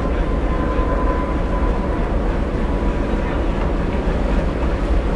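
Jet airliner's engines running at climb power after takeoff: a steady rumbling noise with a faint whine that slowly falls in pitch, over a heavy low rumble.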